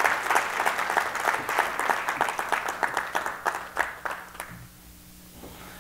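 Audience applauding, the clapping thinning and dying away about four and a half seconds in.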